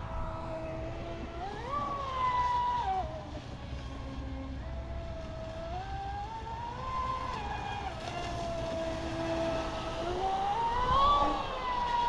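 Pro Boat Sonic Wake V2 RC speedboat's brushless electric motor and propeller whining as the boat runs out on the water. The pitch rises and falls several times with throttle and turns, and is highest and loudest about two seconds in and again near the end, over a low steady rumble.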